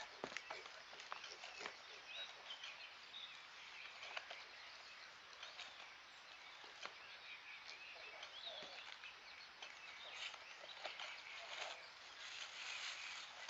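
Faint country ambience with birds chirping, plus light rustling of paper packaging and small clicks as a wrapped part is handled; the rustling is strongest near the end.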